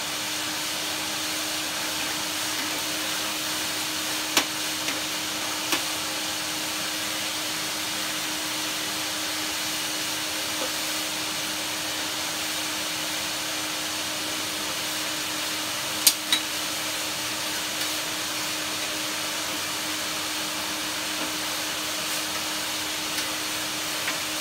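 VAX 2000 vacuum cleaner running steadily, with a constant motor hum under the rush of suction while dust is vacuumed off a machine. A few sharp knocks come through, the loudest about two-thirds of the way in.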